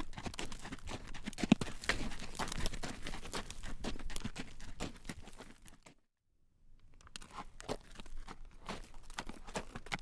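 Horse's hooves clip-clopping on a road as it pulls a carriage, a quick, uneven run of clacks. The sound fades out past the middle, cuts to dead silence for about a second, then the hoofbeats come back.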